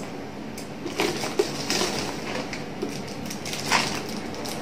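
Plastic packing wrap crinkling and rustling as scissors cut it away from a new bag's handle, with a few sharper crackles.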